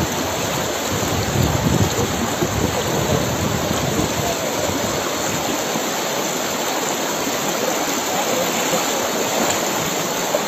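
Floodwater rushing through a swollen stream: a steady, unbroken noise of running water.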